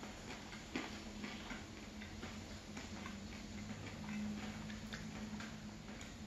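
Close-miked wet chewing and small irregular mouth clicks from someone eating bread soaked in hot chocolate, with a faint steady low hum underneath.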